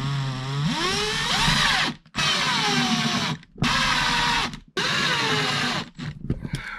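Power drill-driver driving screws into wood, in four runs of the trigger: a first run of about two seconds whose pitch rises as the motor spins up, then three shorter runs of about a second each. A few light clicks near the end.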